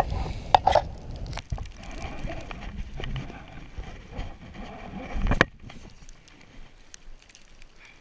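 Wind rumbling on the microphone, with knocks from handling gear in a small boat and a sharp knock about five seconds in. After that it turns quieter, with light scattered ticks.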